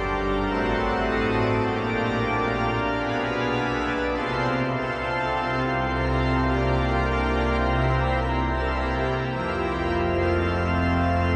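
Organ music: slow, sustained chords over long held bass notes, the bass changing about four seconds in and again about nine seconds in.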